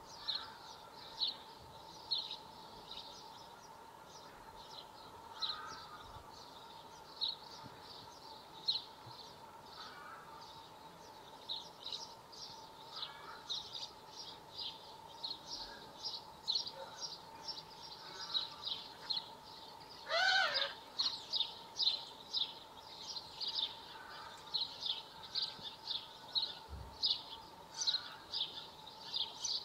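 A small bird chirping over and over in short, high chirps, about one a second at first and quicker, about two a second, from about a third of the way in. One louder, lower call comes about two-thirds through, over a faint steady tone.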